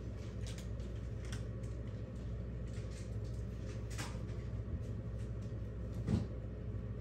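Tarot cards being shuffled and handled: scattered light clicks and snaps, with a sharper one about four seconds in and another about six seconds in, over a steady low hum.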